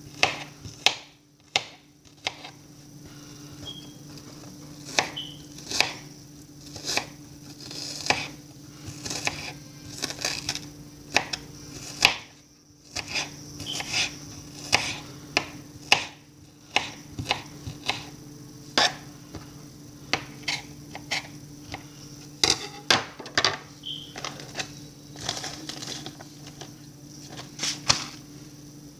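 Kitchen knife chopping an onion on a cutting board: irregular knocks of the blade, a few a second, with short pauses between runs.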